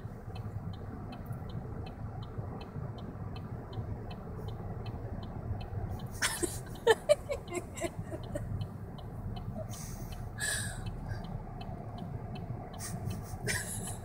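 A woman hiccuping, short sharp catches with a little laughter about six to seven seconds in and again near the end, over the steady low rumble inside a car's cabin. A soft even ticking, about two a second, runs underneath.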